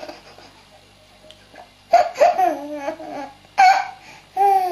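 High-pitched laughter in three short fits, the first about two seconds in.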